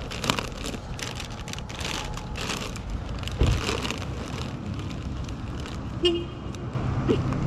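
Crinkling and rustling of a plastic snack bag being handled and packed, with a thump about three and a half seconds in and a short beep near six seconds, over a steady low rumble.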